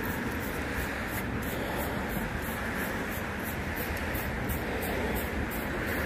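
Shedding blade raking through a dog's thick double coat in quick repeated strokes, about two to three a second, stripping out the shedding undercoat. A steady low rumble runs underneath.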